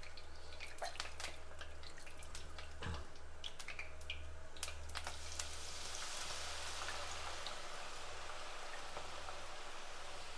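Squeezed potato deep-frying in hot oil. Scattered crackling pops, from the water left in the potato spattering, give way about halfway through to a steady sizzle, with a single knock about three seconds in.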